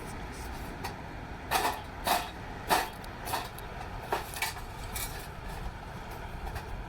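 A series of short knocks and rustles, about seven spread over a few seconds, from hands working hemp twine and fatwood at a small handmade fire pit to get it lit, over a steady low rumble.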